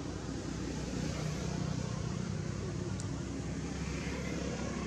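Steady low outdoor rumble and hiss, with a single short click about three seconds in.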